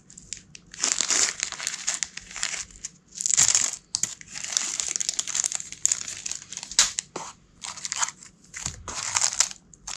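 Small clear plastic bag crinkling and rustling as it is handled, in irregular bursts.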